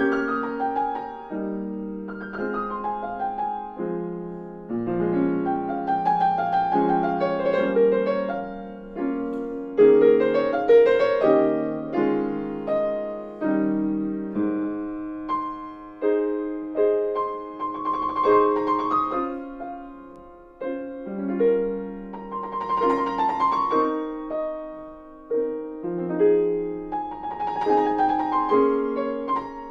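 Solo grand piano playing a classical piece: chords held under a melody, in phrases that swell and fade.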